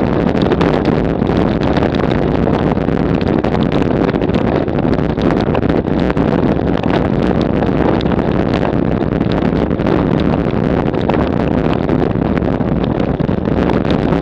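Road bike rattling hard over rough cobblestones at about 30 km/h: a loud, steady clatter of countless small jolts, with wind noise on the microphone.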